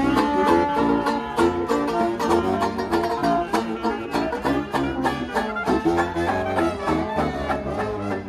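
Live acoustic jazz from a small band: a banjo strums a steady beat under a large saxophone and brass horns.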